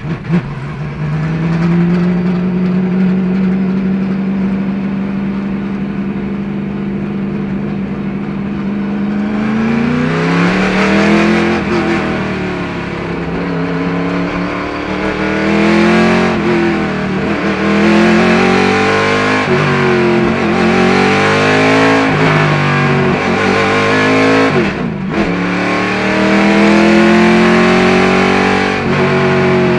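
1976 Chevy IMSA Monza race car's engine heard from inside the cockpit. It runs at a steady pitch for the first several seconds, then about ten seconds in it revs up hard, climbing and dropping again and again as the car accelerates and shifts up through the gears.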